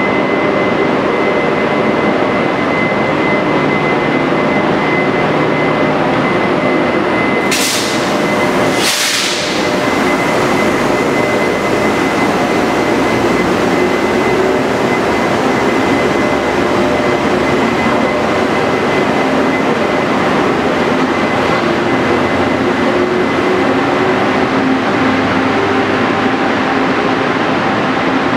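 Taiwan Railways E400-series electric locomotive pulling a passenger train away from the platform, running with a steady loud rumble and several steady humming tones as it passes and its carriages roll by. Two short, sharp hisses sound about eight and nine seconds in.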